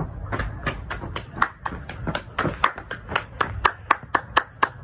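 A person clapping hands in a steady rhythm, about four claps a second.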